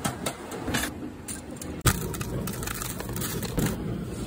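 Hammer knocking on a steel stove part clamped in a bench jig: a few sharp metal knocks, the loudest about two seconds in, over steady factory background noise.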